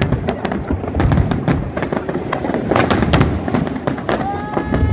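Fireworks display: a dense, irregular barrage of loud shell bursts and crackling bangs over a continuous low rumble.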